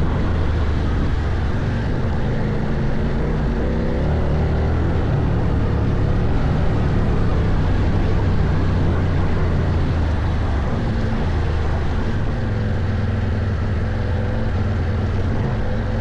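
2024 CFMOTO Ibex 800T's parallel-twin engine running steadily under load on a trail ride, its pitch rising and falling slightly with the throttle.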